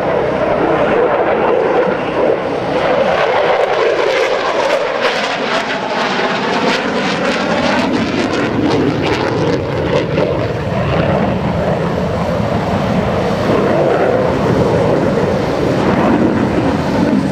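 F-16 Fighting Falcon's jet engine, a loud, steady roar as the fighter flies a tight, high-G turn. Through the middle the tone shifts in sweeping arcs as the jet passes.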